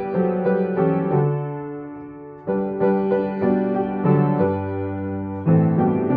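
Solo piano playing a slow hymn accompaniment in full chords over a bass line. A chord rings and fades about two seconds in before the next phrase begins with a new chord.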